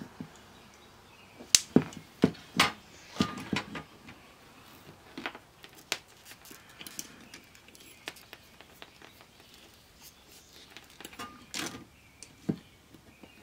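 Irregular light clicks and knocks of small parts being handled: multimeter test probes and clips being moved and set against a CD player's laser pickup assembly. A cluster of sharp clicks comes in the first few seconds and a few more near the end.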